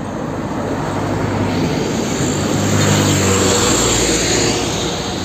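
Car-carrier truck driving past: diesel engine drone and tyre noise that swell to a peak about three seconds in, then ease off.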